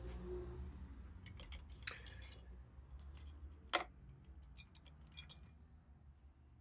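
Scattered light clinks and clicks of small metal tools being handled on a workbench, with one sharper click a little before the middle, over a steady low hum.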